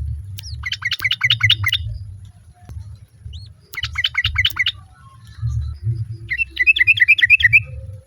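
Yellow-vented bulbul (trucukan) calling in three bursts of rapid chattering notes, each about a second long, with a low rumble underneath. The bird is a female calling for a male.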